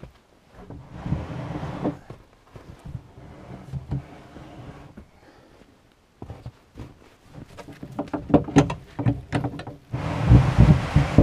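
Scattered crunches and scrapes in snow as the tow rope is taken up, then about ten seconds in a freshly chainsaw-milled wooden slab starts being dragged over snow by the rope, a loud continuous rushing scrape.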